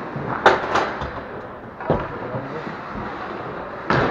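Ice hockey play: about four sharp clacks of sticks, puck and boards, each echoing briefly in the rink, over steady arena background noise.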